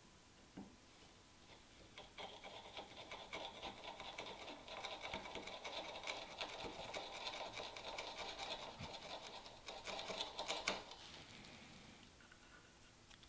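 A bench chisel, pushed by hand, pares a thin shaving from walnut at a dovetail baseline: a fine, fast scratching and crackling of the edge slicing the wood fibres. It starts about two seconds in and ends with a sharper crackle shortly before stopping.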